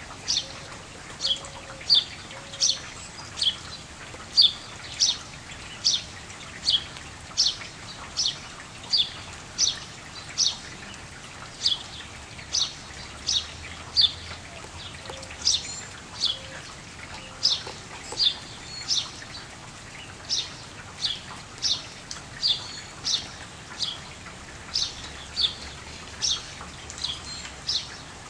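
A bird repeating one short, sharp, down-slurred call over and over, about one and a half times a second, over the steady hiss of falling rain.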